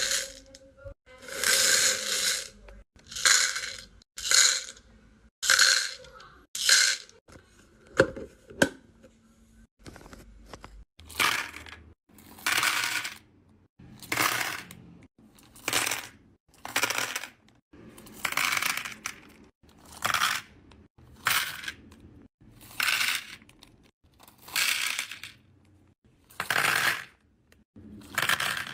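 Small beads poured from plastic zip bags, rattling and clattering into plastic organizer compartments. It comes as one short pour after another, about every second or so.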